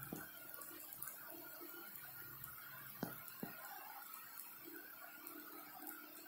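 Faint, steady sizzling of batter cooking on a hot iron tawa, with two sharp clicks about three seconds in, half a second apart.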